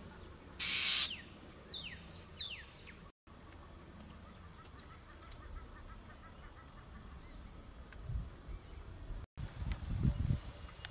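Wild bush ambience: a steady high insect drone, with a brief harsh call about half a second in and a few falling whistled bird calls over the next two seconds. After a cut near the end, the drone stops and low thumps and rumbles take over.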